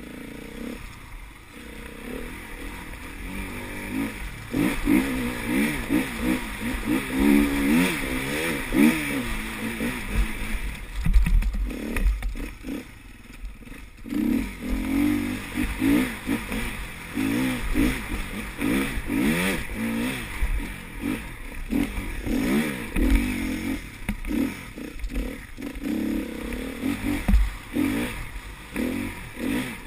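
Enduro motorcycle engine revving up and down while being ridden, its pitch rising and falling with the throttle. It eases off briefly about three seconds in and again around thirteen seconds.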